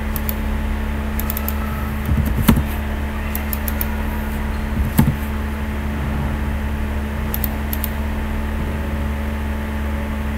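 Steady low hum under scattered light clicks of a computer mouse and keyboard. Two louder knocks come about two and a half seconds in and again about five seconds in.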